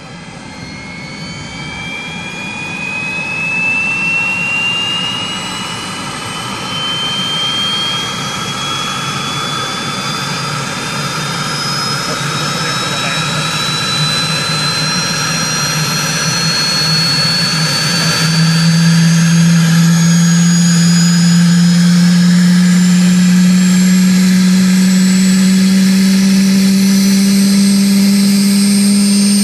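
Sud Aviation Gazelle helicopter starting up: the Turbomeca Astazou turboshaft's whine climbs steadily in pitch as the engine spools up, growing louder. About two-thirds through, a strong low hum comes in and rises slowly as the rotor comes up to speed.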